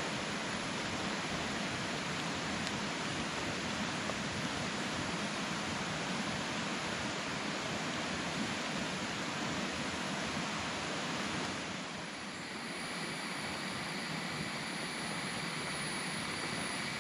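Steady hiss of rain falling on the forest and tarps. About twelve seconds in the sound dips slightly and faint high steady tones join it.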